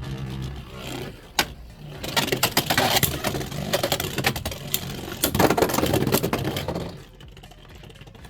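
Beyblade X spinning tops battling in a plastic stadium: a sharp clack about a second in, then rapid, repeated clashing and rattling from about two seconds in, which stops near the end as the battle finishes.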